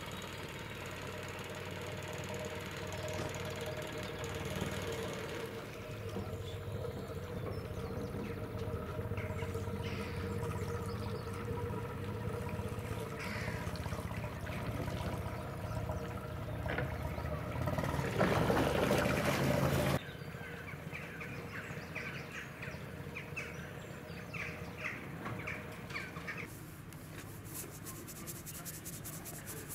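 Boat engine running steadily as the boat motors through calm water, with small birds chirping over it in the second half. A louder rush of noise swells about two-thirds through and cuts off suddenly.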